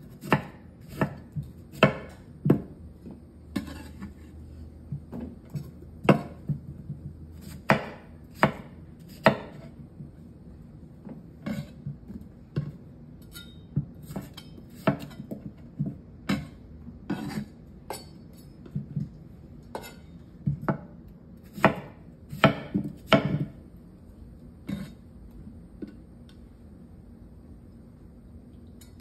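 Kitchen knife cutting Charentais melon wedges on a bamboo cutting board: irregular sharp knocks of the blade striking the board, coming in quick clusters with short pauses and thinning out near the end.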